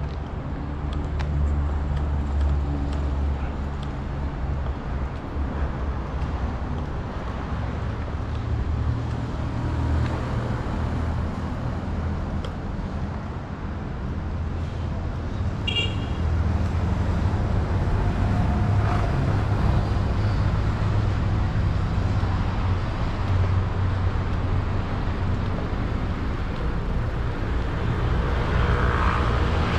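Urban road traffic: a steady rumble of car engines and tyres passing close by, with a brief high squeak about halfway through.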